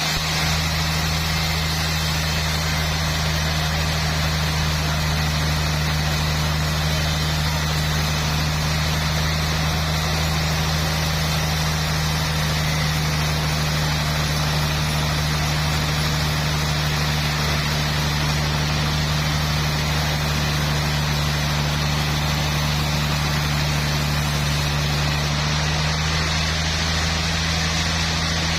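Sawmill machinery running steadily with a constant low hum and no change in pitch or load.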